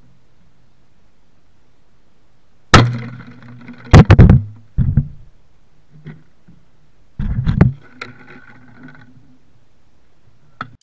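Loud bangs as a plastic bottle filled with hydrogen-oxygen (HHO) gas explodes: a sharp bang about three seconds in, a quick cluster of bangs around four to five seconds, and another burst around seven seconds, each with a short ringing tail.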